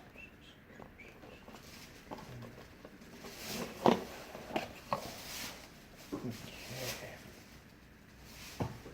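Cardboard and plastic packaging being torn open and handled: irregular rustling and crinkling with a few sharp snaps, the loudest about four seconds in.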